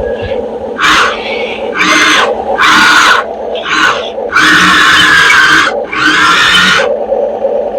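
RC model excavator working: a steady running hum under repeated bursts of whining, grinding motor and hydraulic noise, about eight times, as the arm and bucket are moved.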